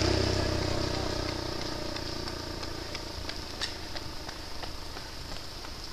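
A motor vehicle's engine, steady and low-pitched, fading away over the first two seconds. After it come faint, evenly spaced ticks, about three a second.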